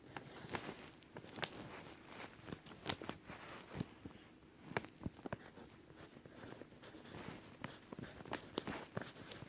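Handwriting on paper: faint, irregular scratching strokes with scattered small taps.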